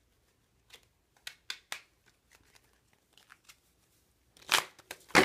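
A deck of playing cards being shuffled by hand: a series of soft flicks and snaps, then two louder riffles near the end as the cards spill onto the tabletop.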